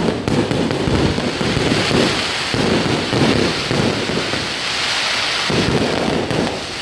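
Fireworks going off in a dense, continuous barrage of crackles and bangs.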